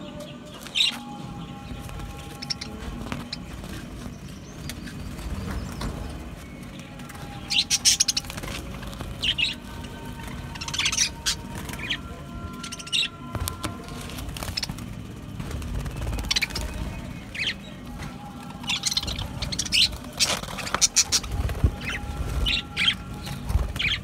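A flock of budgerigars chirping and chattering, with sharp chirps scattered irregularly throughout and busiest in a few clusters.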